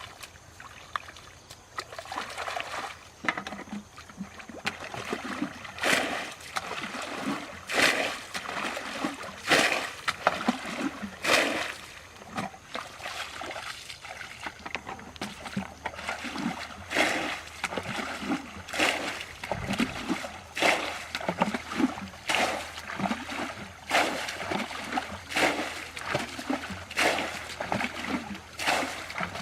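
Water splashing in many short, irregular splashes, about one every second, over a steady trickling wash.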